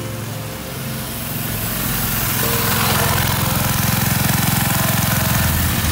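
Honda GX160 single-cylinder four-stroke engine of a homemade go-kart running, getting louder about two seconds in.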